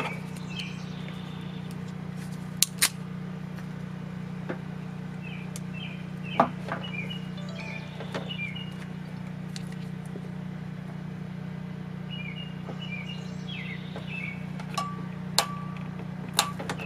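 Small birds chirping in short groups over a steady low hum, with a few sharp clicks from a hand wire crimper and wires being handled.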